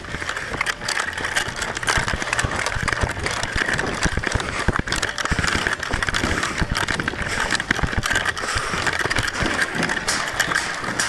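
Footsteps crunching on gravel and dirt with wind noise and gear rustling on a body-worn camera's microphone, a steady hiss under many irregular short knocks.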